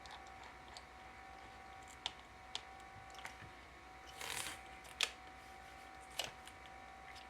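Scattered faint clicks of a small Torx screwdriver and screws as laptop hinge screws are driven in, with a short scraping rustle about four seconds in, over a faint steady hum.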